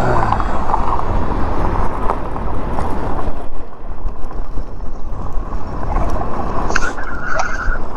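Wind rushing over the microphone and tyre noise from an electric bike riding along a gravel path, steady throughout, with a brief high-pitched tone near the end.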